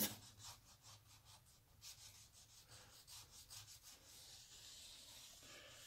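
Faint rubbing of fingertips sliding back and forth over the surface grinder's oiled, freshly stoned way, feeling it for high points or nicks. A string of soft strokes, then a fainter steady hiss near the end.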